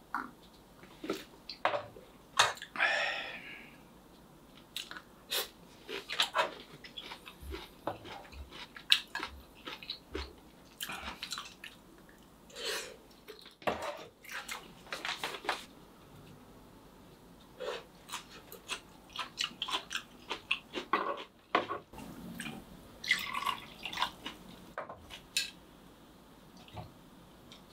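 Scattered clinks, taps and scrapes of metal tongs on a cast-iron skillet and a stainless steel camping cup as cooked sausages and vegetables are handled and picked out of the pan.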